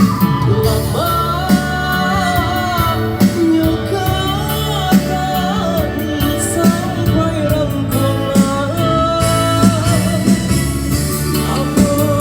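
Live band music at a sound check: a sung melody with wavering, bending notes over bass and a steady beat.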